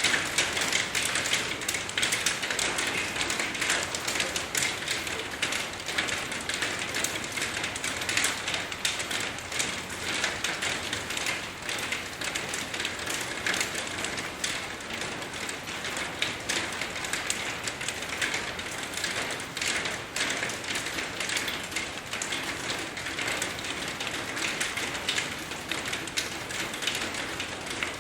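Steady rainfall, a dense hiss crowded with many sharp ticks of individual drops striking.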